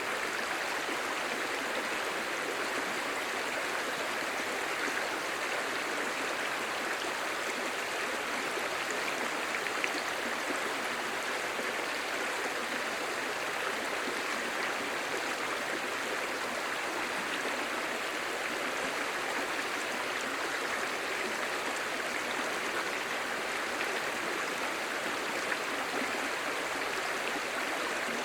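A clear, shallow stream babbling steadily over stones, an even rushing sound with no pauses.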